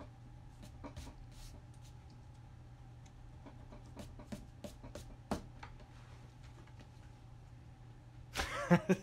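Faint pencil strokes scratching and tapping on paper, a scatter of light marks over a low steady hum. Near the end there is a brief, louder vocal sound.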